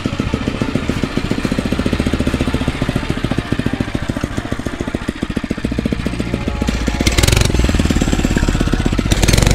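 Phatmoto Rover 79cc motorized bicycle's small single-cylinder four-stroke engine running with a rapid, even firing beat. It grows louder about six seconds in as the engine is opened up, with bursts of rushing noise near the end.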